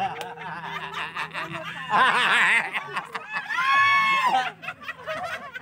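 A group of women laughing and chattering. There is a loud burst of laughter about two seconds in and a long, high-pitched voiced cry near four seconds.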